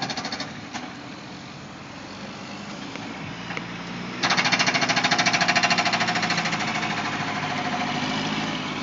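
Construction machinery hammering in a fast, even rapid-fire pulse. It is fainter for the first few seconds and much louder from about four seconds in.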